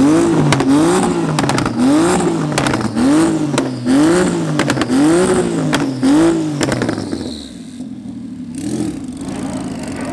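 A car engine blipped repeatedly, about seven quick revs roughly a second apart with sharp cracks among them, then dropping back to a steady idle about seven seconds in.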